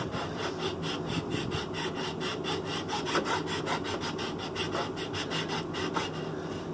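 Hand rasp scraping across a pine wood block in quick, even, repeated strokes, shaping the wood down.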